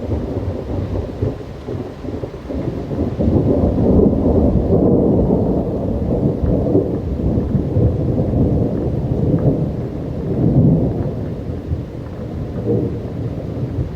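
Thunderstorm: heavy, rolling thunder rumbling over steady rain, swelling a few seconds in and again about ten seconds in.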